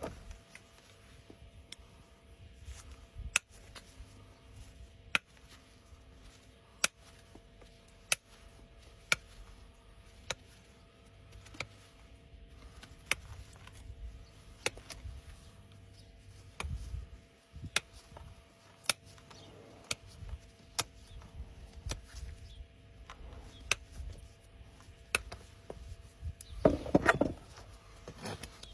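Hoof trimming on a horse's overgrown hoof: sharp snaps about every second and a half, then a short burst of rasping near the end.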